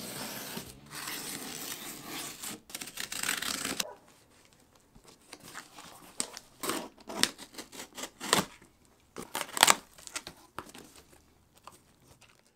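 Utility knife slicing through packing tape and cardboard along a box seam for about four seconds, stopping abruptly. Then scattered crinkles and rustles as the cardboard flaps, plastic bags and bubble wrap inside are handled.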